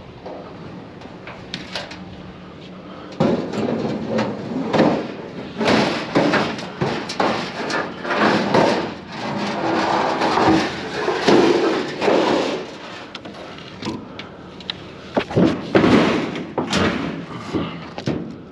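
Scrap items being shoved and wedged into a full load: a long run of irregular knocks, bangs and scraping as pieces are forced into place. The clatter starts about three seconds in and dies away shortly before the end.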